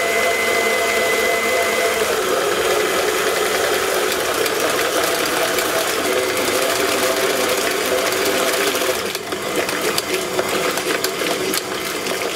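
Electric stand mixer running on high, its wire whisk beating cream in a stainless steel bowl with a steady motor hum. From about nine seconds in the whisking turns uneven and clicky as the cream breaks into clumps of butter and buttermilk.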